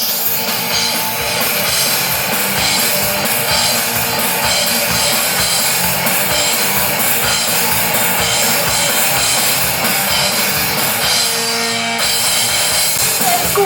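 Live rock band playing loud instrumental music on drum kit and electric guitar.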